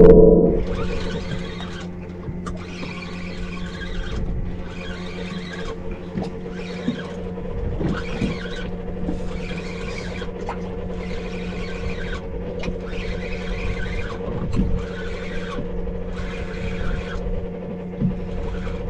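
Fishing reel being cranked in short, regular spells of whirring, about one every second or so, as an angler pumps the rod against a hooked fish. A steady low hum runs underneath.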